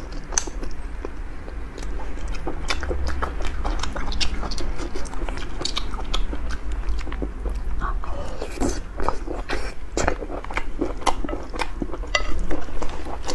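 Close-miked eating: wet chewing, biting and mouth smacks as a mouthful of food is chewed, a quick irregular run of clicks and squelches.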